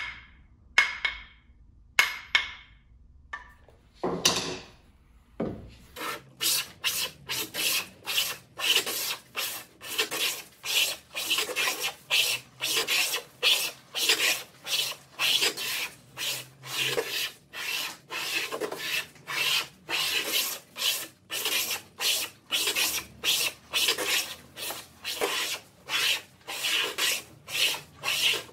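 A few short, ringing knocks, then a wooden hand plane shaving a wooden panel in quick repeated strokes, about two a second, each a short scraping hiss.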